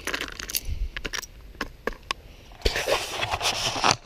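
Digging and scraping in stony dirt with a hand tool: scattered clicks and knocks, then a rougher stretch of scraping from a little past halfway.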